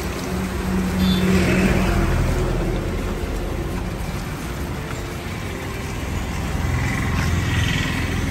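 Volkswagen Vento TDI's diesel engine running at low speed as the car is driven slowly and manoeuvred into a parking spot.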